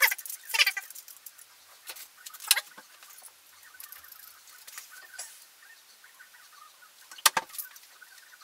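Metal garlic press being handled and squeezed: scattered short clicks and scrapes, with a sharper clack about seven seconds in.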